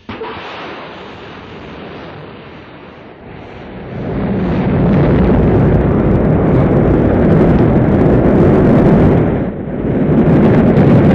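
Rocket engines firing at liftoff: a dense rumble that starts suddenly, swells to full loudness about four seconds in, and dips briefly near the end.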